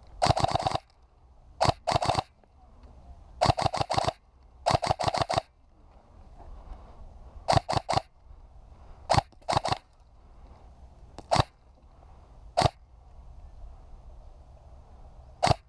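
Airsoft rifle fired at close range in short rapid bursts and single shots, each shot a sharp snapping crack. Bursts come in the first five seconds, then fewer bursts and isolated single shots toward the end.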